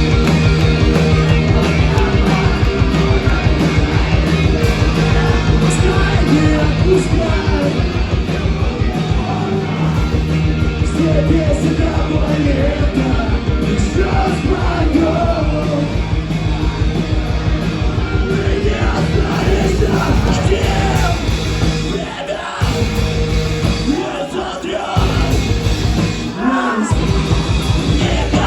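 Rock band playing live, with shouted, yelled vocals over sustained guitar and bass chords and drums. It drops out briefly twice in the last few seconds and stops right at the end as the song finishes.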